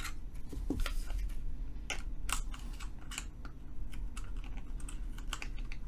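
Blunt scissors snipping through cotton wicking: a run of irregular sharp clicks as the blades open and close several times.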